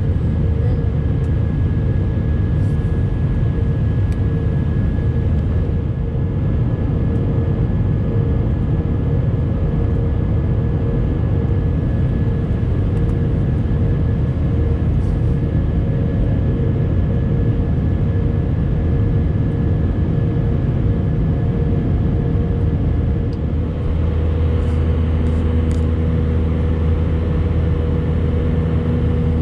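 Steady cabin noise of an Airbus A319 jet airliner in flight: engine drone and rushing air, heard from a window seat over the wing. A deeper hum grows stronger about 24 seconds in.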